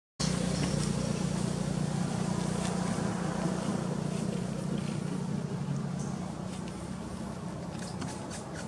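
A steady low engine drone, like a motor running, that slowly fades over the seconds. A few faint crinkles of a plastic snack wrapper come near the end.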